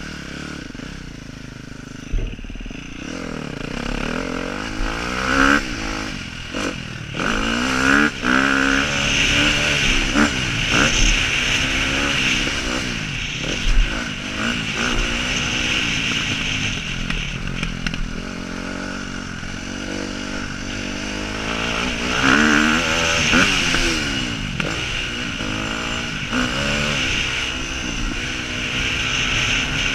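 Motocross bike engine heard on board, starting from a low idle and then revving hard as the bike pulls away and rides a dirt track. The pitch climbs and drops again and again as the rider accelerates, shifts and backs off.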